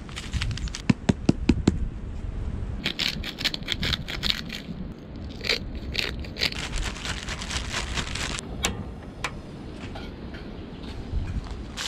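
Plastic zip-lock bag crinkling and rustling as herring fillets are coated in flour and seasoning, with a quick run of four sharp taps about a second in. A low wind rumble on the microphone runs underneath.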